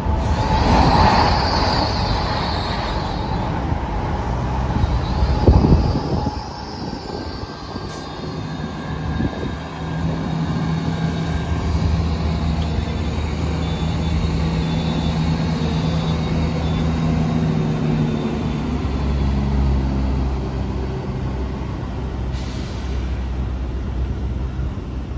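Train sounds at a station platform. In the first seconds there is a high squeal and a loud knock about five seconds in. Then an East Midlands Railway diesel train departs, its engine setting up a steady low drone about ten seconds in that drops to a lower note near the end.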